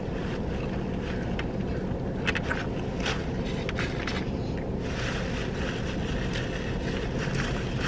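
Steady low rumble inside a car cabin, with a few faint rustles and clicks as a takeout box of fries is handled.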